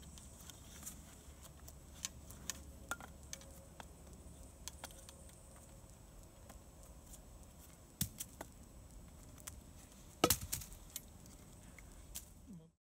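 Wooden sticks of a handmade hemlock bucksaw frame clicking and knocking together as they are handled in gloved hands, with two louder knocks about eight and ten seconds in.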